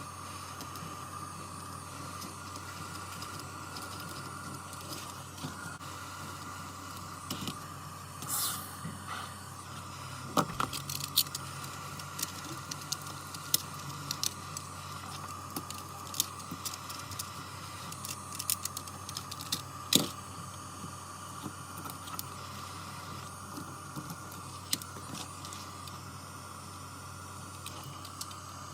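Scattered small clicks and taps of hand tools working on a tablet during repair, over a steady electrical hum. The clicks come irregularly, bunched between about a quarter and nine-tenths of the way through, the sharpest near the middle.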